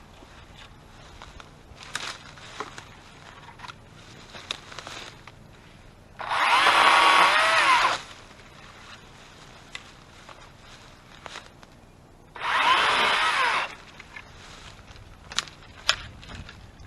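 Battery-powered electric chainsaw run in two short bursts, the first nearly two seconds and the second just over a second, its motor whine rising and dipping in pitch. Light snaps and crackles sound between the bursts.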